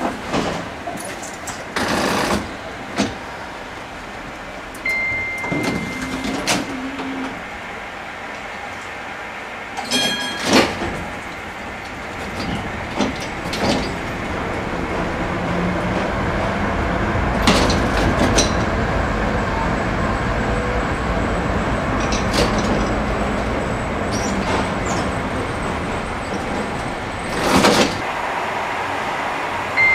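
Interior of a DÜWAG Kurbelwagen tram, heard from inside the car. First come scattered clicks and knocks while the tram is quiet, with a short beep about five seconds in and a sharp clatter a few seconds later. The tram then pulls away and runs along the track with a rumble that grows louder and holds, broken by occasional sharp knocks.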